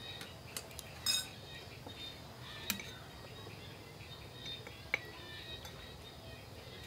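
Metal spoons clinking against ceramic bowls as soup is served and eaten: a few separate sharp clinks, the loudest a little after a second in.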